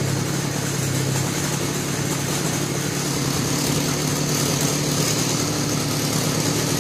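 KisanKraft two-stroke brush cutter engine running steadily.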